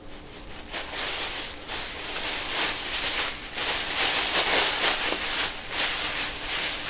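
Thin plastic bag crinkling as it is folded and twisted tightly around a cloth shirt, in irregular handling noises that start about half a second in and swell and fade with each grip.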